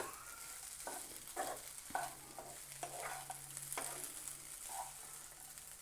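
Sweet corn kernels and onion frying in oil in a pan with a faint sizzle, stirred with a spatula that scrapes the pan now and then.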